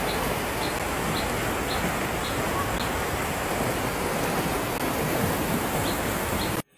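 Floodwater surging up out of a street manhole and rushing along a flooded road in a storm, a steady loud rush of water. It cuts off suddenly near the end.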